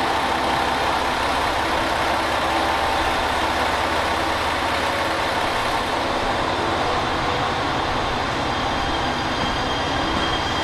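JR Shikoku 7200 series electric train pulling out of a station platform: a steady running noise with a faint steady whine.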